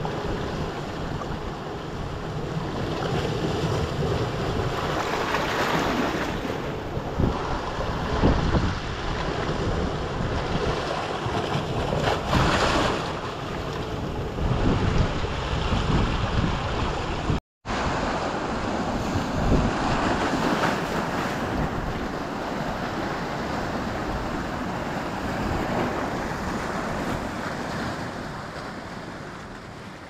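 Ocean surf washing and surging through a narrow channel between shoreline rocks, swelling loudly every few seconds. The sound cuts out for a moment about two-thirds of the way through and fades out near the end.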